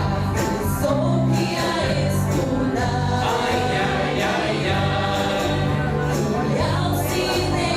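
Live music: a group of voices singing together over instrumental accompaniment with a steady bass line.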